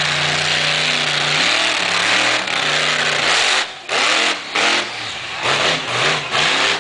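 Monster truck's 540-cubic-inch Ford engine running loud and steady, then revved in a quick string of short blips from about three and a half seconds in.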